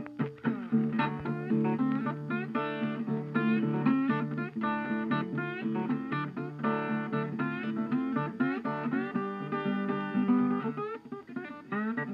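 Background music led by acoustic guitar, plucked and strummed over a steady low accompaniment.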